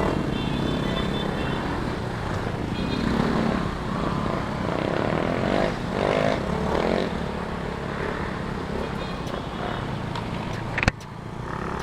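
Yamaha Mio Soulty scooter's single-cylinder four-stroke engine running through a newly fitted ORBR aftermarket exhaust pipe. The engine note rises and falls in pitch about halfway through. A sharp click comes near the end, after which the sound drops quieter.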